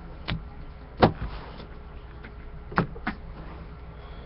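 A handful of sharp taps and knocks from trading cards being handled and set down on a table, the loudest about a second in.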